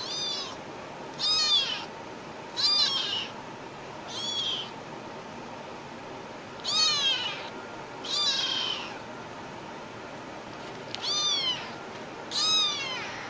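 A cat meowing again and again: about eight short, high-pitched meows, each rising and falling in pitch, over a steady hiss.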